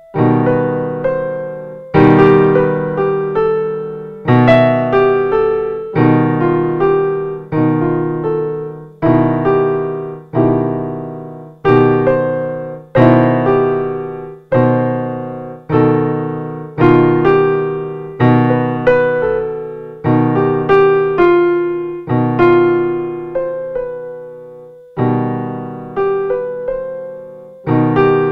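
Piano music: slow chords struck about every second and a half, each ringing and dying away before the next.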